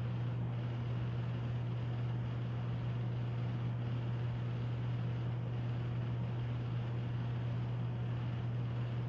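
Steady low electrical-sounding hum with an even hiss over it: constant room background noise, unchanging throughout.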